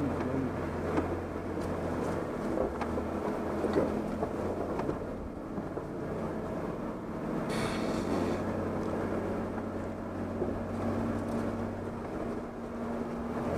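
Off-road 4x4's engine running steadily at low revs as it crawls up a rutted dirt trail, with a brief hissing rush about halfway through.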